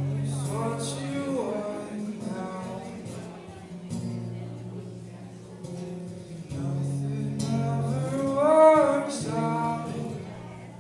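Live song: a man singing over acoustic guitar, in two sung phrases, the second one starting about seven seconds in and rising to the loudest point.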